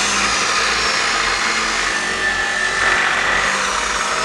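Angle grinder's abrasive disc cutting through steel on a truck axle, a steady loud whine and hiss that runs without a break.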